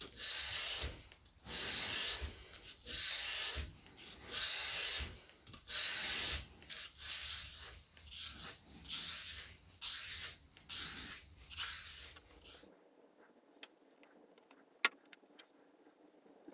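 Hand sanding a steel knife blade: an abrasive block is rubbed back and forth along the blade, a rough, hissing stroke about once a second. It stops about 13 seconds in, and a few faint handling clicks follow.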